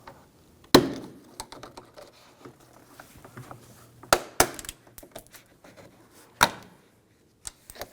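Plastic trim piece on a Volkswagen Jetta's front door being pried off with a trim tool: sharp clicks and snaps as its clips pop loose, amid small scrapes and ticks. The loudest snap comes about a second in, and others come around four seconds and six and a half seconds.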